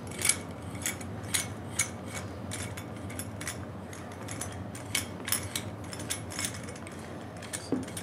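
Irregular light metallic clicks and clinks, a dozen or so, from the threaded brass parts of a thermostatic radiator valve repair tool being screwed together by hand.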